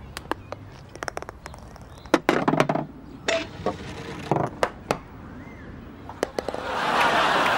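Golf ball struck with a putter and running through a miniature golf obstacle, a string of sharp clicks and hollow clatters as it rattles down the chutes. Audience applause swells up near the end.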